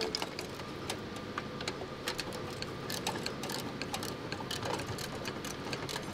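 Quick, irregular light metallic clicks and ticks from a hand tool working a bolt inside a rusty steel dashboard. A steady low workshop hum runs underneath.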